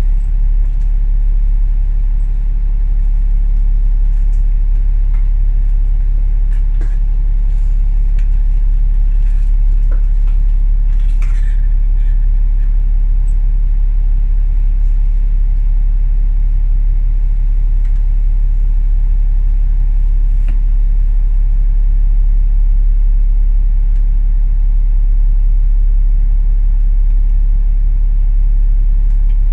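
Alexander Dennis Enviro500 MMC double-decker bus heard from inside the cabin while under way: a steady, loud low engine and road rumble, with a few faint rattles.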